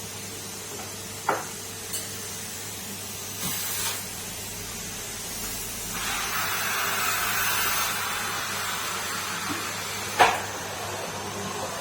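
Numatic Henry canister vacuum cleaner running with a steady hum. The rush of air through the nozzle swells about six seconds in as it works the floor. There are two sharp knocks, a small one early and a loud one near the end.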